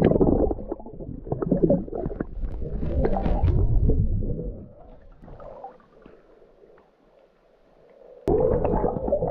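Water sloshing and gurgling around a camera as it dips in and out of the water, muffled and booming while it is under. It goes quiet for a couple of seconds, then the camera plunges back under with a sudden loud burst near the end.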